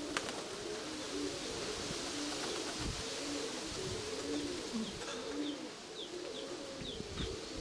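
Domestic pigeons cooing over and over in low, rolling calls. Several short, high, falling chirps from a small bird come in the second half, over a steady windy hiss.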